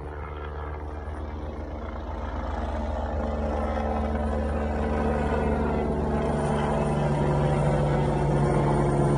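Leonardo helicopter in flight, its rotor and turbine engine making a steady low drone that grows gradually louder as it nears.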